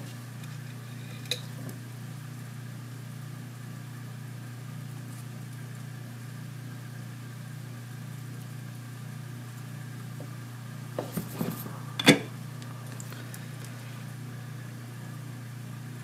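A steady low hum while a wire is soldered to an LED strip, with a small click about a second in and a cluster of handling clicks ending in one sharp clack near the end.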